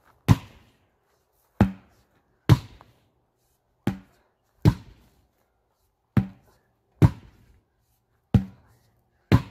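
Sledgehammers striking a large tractor tire, two people hitting in turn. There are nine heavy thuds at an uneven rate of roughly one a second, often falling in pairs.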